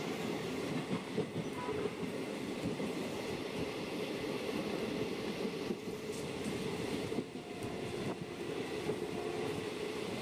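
Indian Railways express passenger train running along the track: a steady rumble of the moving coach and wheels, with small irregular knocks.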